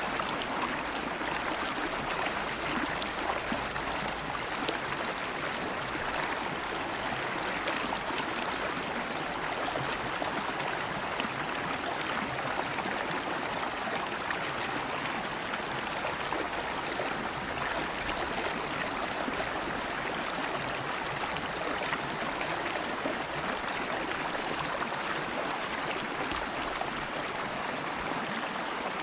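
River water flowing steadily, a continuous even rush and babble of stream water.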